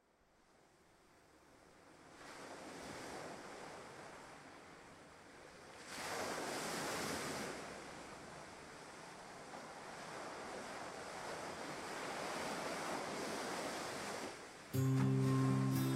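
Wind rushing, fading in over the first two seconds and then swelling and easing in slow gusts, loudest about six to seven and a half seconds in. Music with low held notes comes in near the end.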